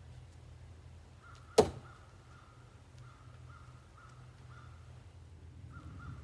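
A single sharp impact about one and a half seconds in: a thrown Cold Steel Ti-Lite VI folding knife striking its target. A bird calls repeatedly, a short call about twice a second.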